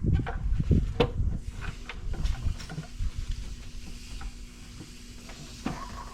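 Irregular metallic clicks and knocks of hand tools and engine parts being handled during an intake manifold fit-up, busiest in the first half and fading to light rustling near the end.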